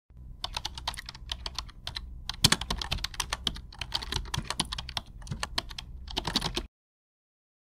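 Typing on a computer keyboard: quick, irregular key clicks over a low steady hum, cutting off to silence near the end.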